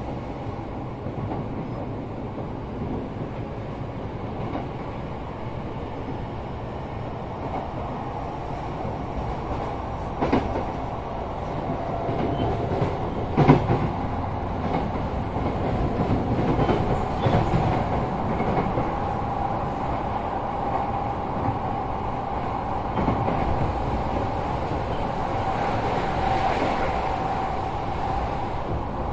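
Sotetsu 12000 series electric train running, heard inside a motor car fitted with a Mitsubishi IGBT-VVVF drive: steady wheel and rail noise with a faint motor whine. The whine creeps up in pitch through the second half as the noise grows louder, and two sharp knocks come about ten and thirteen seconds in.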